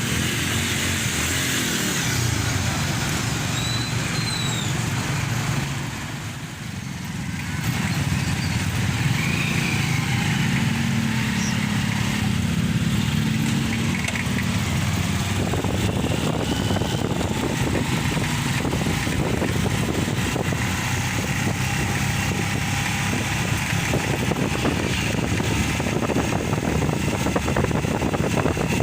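A motor vehicle running along, a steady engine with road and wind noise, that drops briefly about six seconds in.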